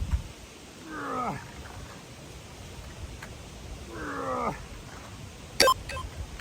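Two strained groans of effort from a man doing ab wheel rollouts, about three seconds apart, each falling in pitch. A short, sharp ringing beep comes near the end.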